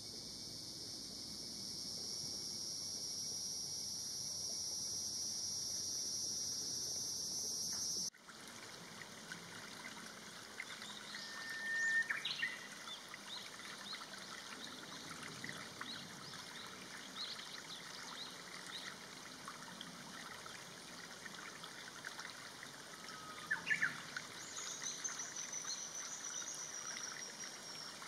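Cicadas calling in a steady high chorus, which stops abruptly about eight seconds in. Then a shallow stream trickling over stones, with scattered bird chirps and one long, slightly falling high call near the end.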